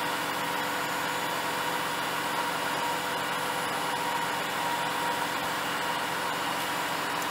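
The 6.7-litre inline-six turbo diesel of a 2011 Dodge Ram 5500 bucket truck running steadily, with a steady whine over the engine noise.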